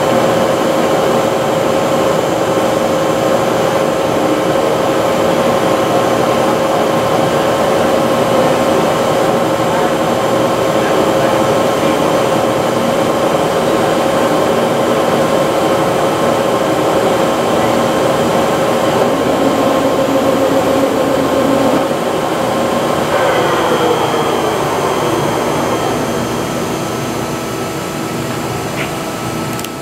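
Bullard CNC vertical turning lathe turning its 56-inch four-jaw chuck table, with a steady whine from the spindle drive. About 23 seconds in, the whine falls in pitch as the table slows down, and the sound fades near the end.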